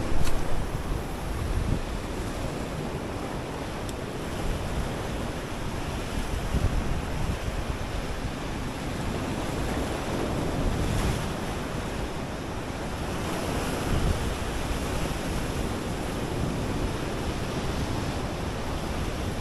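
Sea surf washing onto the beach with wind buffeting the microphone, a steady rushing noise that swells and eases every few seconds. A short knock comes right at the start.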